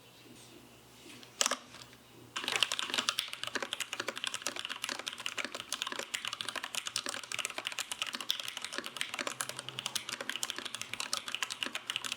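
Typing on a Boardsource Mark 65 mechanical keyboard: one keystroke about a second and a half in, then fast, continuous typing from about two and a half seconds in, many key clicks a second.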